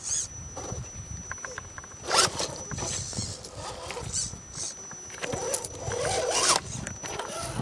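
Scale RC rock crawler's electric motor and gears whining in short bursts as the throttle is worked, with the longest burst near the end, while the truck climbs a rock step.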